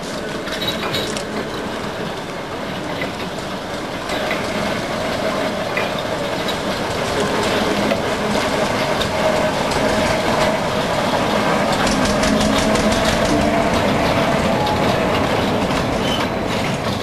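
Small narrow-gauge locomotive running as it hauls a rake of steel tipper wagons, with the wheels clicking over the rail joints. The sound grows louder as the train approaches and passes, and the clicking is busiest about twelve seconds in.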